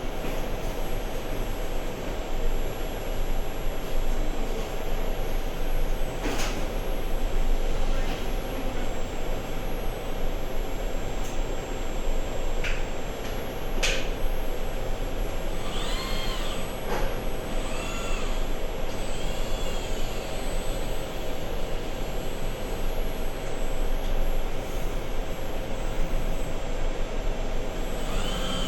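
Steady machining noise from an automated machining setup running, with occasional sharp clicks and a few short whines that rise and fall, around the middle.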